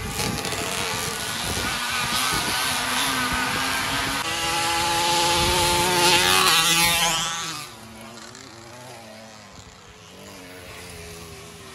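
Racing motorized bicycle's small engine buzzing past at full throttle: its pitch climbs as it approaches and drops sharply as it goes by, about seven seconds in, then fades. Other engines run faintly in the distance afterwards.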